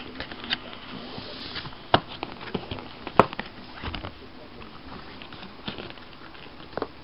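Handling noise from a cardboard graphics-card box being moved about: scattered knocks and light rustling, the two loudest knocks about two and three seconds in.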